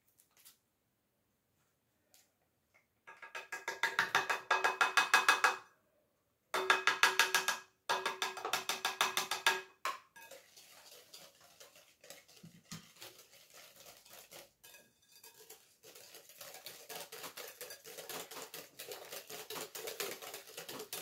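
Wire whisk beating runny cake batter in a glass bowl. The wires clink rapidly against the glass in three loud bursts, then the whisking goes on more softly and steadily.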